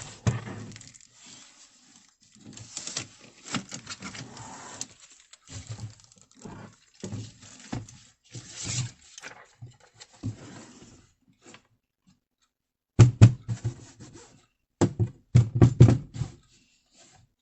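Irregular handling noises: rustling, clicks and scrapes, then two clusters of heavy knocks and thumps near the end.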